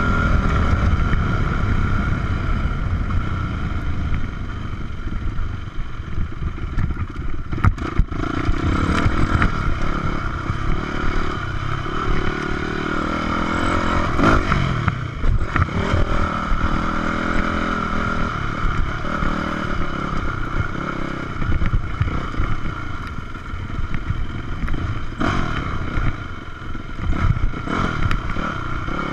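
Yamaha 426 dirt bike's four-stroke single-cylinder engine running under a working throttle, its pitch rising and falling, with a few sharp clattering knocks from the bike over bumps.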